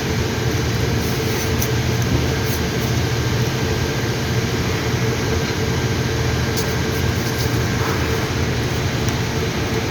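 A steady mechanical hum, with a few faint, light clicks.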